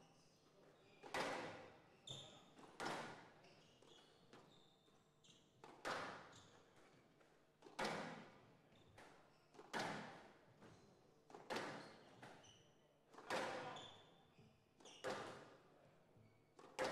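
Squash ball being struck by rackets and hitting the court walls, a sharp crack about every two seconds, each ringing briefly in the hall.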